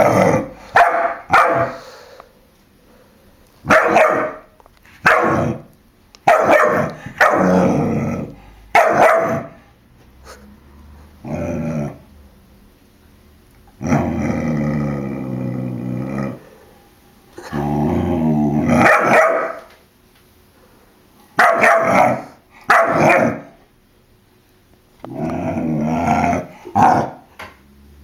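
German Shepherd puppy barking in short bursts and clusters, with quiet pauses between. Near the middle it gives two longer drawn-out growls of about two seconds each.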